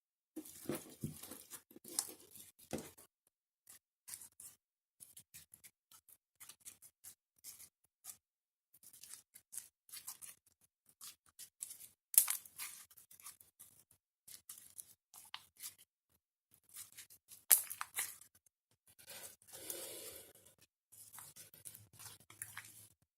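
Clear slime being worked by hand, giving irregular sticky crackles and clicks, with a few louder snaps.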